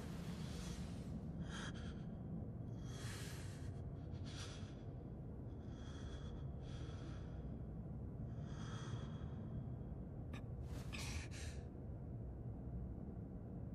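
A young man breathing heavily and raggedly, with a breath every second or so and a sharper gasp near the end, over a low steady rumble.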